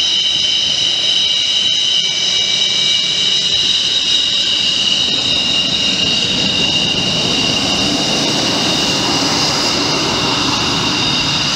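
Twin Klimov RD-33 turbofan engines of a MiG-29UB jet fighter running at taxi power: a steady, high, several-toned whine over the noise of the exhaust. The exhaust rumble swells in the second half as the jet turns side-on and rolls past.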